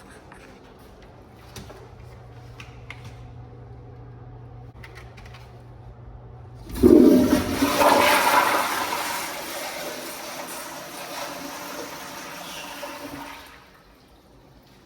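Commercial restroom toilet flushing: after about seven seconds of low steady room hum with a few small clicks, the flush starts suddenly with a loud rush of water, loudest at the start, then tapers off over about six seconds and stops shortly before the end.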